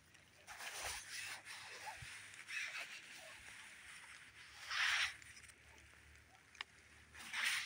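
Soft rustling hiss that swells briefly about four times, with a single sharp click near the end.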